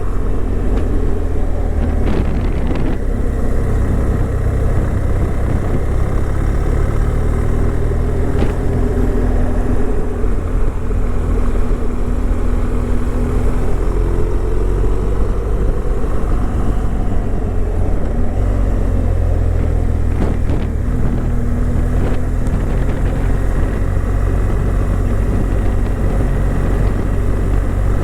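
Car on the move: a steady low rumble of engine and road noise, with the engine note drifting up and down in pitch now and then.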